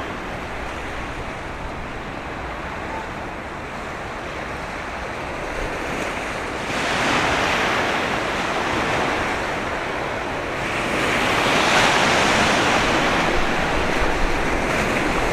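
Waves washing on the shore with wind, a steady rushing noise that swells louder about seven seconds in and again around eleven seconds in.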